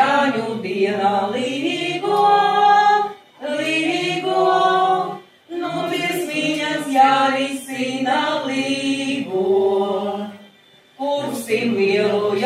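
A group of voices singing a song unaccompanied, in long phrases separated by three brief pauses for breath.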